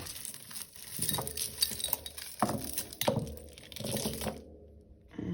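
Small costume jewellery pieces clinking and tapping together as they are handled and untangled: a run of light irregular clicks with a couple of brighter, ringing chinks about halfway through.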